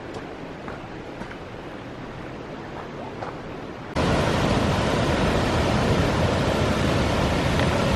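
Soft footsteps crunching on a gravel trail over a faint steady hiss. Halfway through, a sudden cut to the loud, steady rushing of a waterfall pouring over rock ledges.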